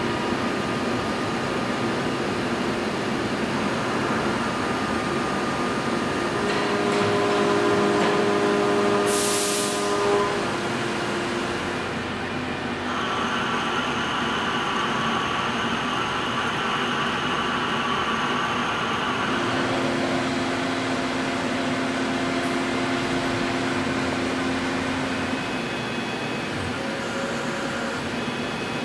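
CNC lathe turning a steel shaft under flood coolant, running steadily with coolant spraying. Its tone steps to a new pitch a few times, and a brief hiss comes about nine seconds in.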